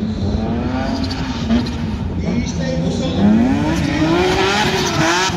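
Drift car engines revving hard, the pitch climbing and dropping again and again, with a rushing hiss of tyre noise building a little past halfway.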